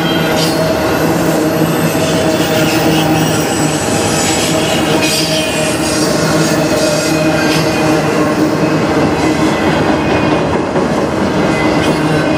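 Autorack freight cars rolling past at speed: a loud, steady rumble of steel wheels on rail, with a steady squealing tone from the wheels and scattered clacks.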